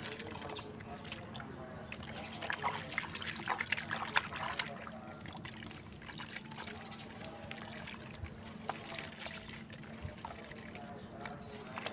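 Crumbled dry sand and cement pouring from the hands into a basin of muddy water: a run of gritty crackles with trickling splashes, densest in the first half.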